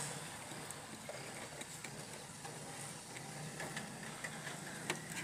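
Faint handling noise: small clicks and rustles as a circuit board and its wires are moved about inside a metal amplifier chassis, over a steady background hiss. One sharper click comes near the end.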